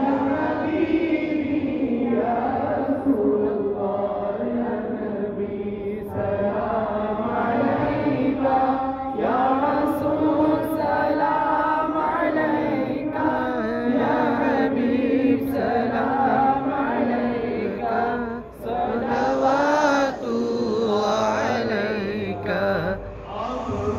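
A group of men and boys chanting Islamic devotional verses together in unison, with short breaks between lines.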